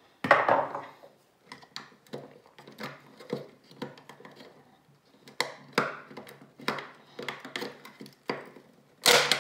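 Flathead screwdriver prying at the seam of an old Apple USB charger's plastic case: a string of irregular clicks, creaks and scrapes of plastic. There is a sharp crack just after the start and a louder one near the end, as the glued case gives way.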